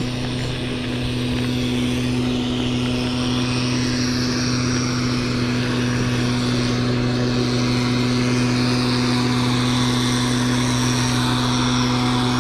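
A steady low mechanical hum, like a small engine or motor running, over a continuous rush of wind and tyre noise from a bicycle rolling along a dirt track.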